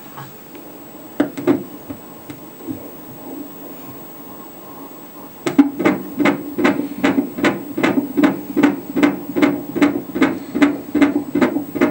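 Ultrasound scanner's Doppler audio playing a 17-week fetus's heartbeat. About halfway through, a rapid, even run of beats starts and goes on, loud and clear.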